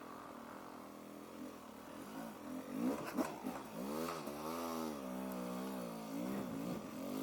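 Motorcycle engine running low at first, then from about two and a half seconds revving up and down over and over, with a couple of short knocks around three seconds in.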